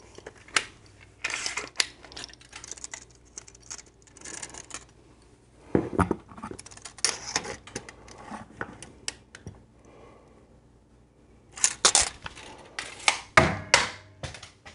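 Handling noises of a curtain-rod bracket and pencil being worked against a drywall wall: scattered clicks, taps and scratches, a heavier knock about six seconds in, and a burst of louder knocks and clatters near the end.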